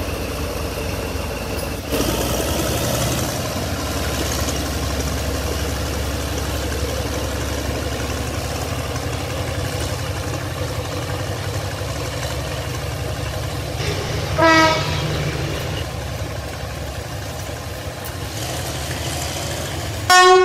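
Train running steadily on its track, with a short horn toot about fourteen seconds in.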